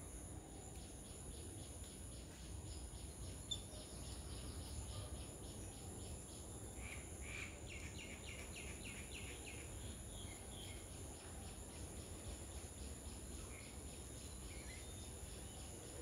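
Faint garden ambience: a steady high insect drone, a fast regular series of short chirps at about five a second that stops about eleven seconds in, and a few scattered bird chirps.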